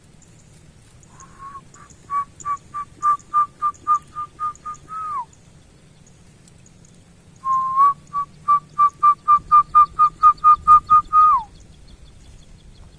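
A whistled call sounds twice, a few seconds apart: each time a steady note breaks into a quick run of about a dozen short whistled notes at one pitch, about four a second, then slides down at the end.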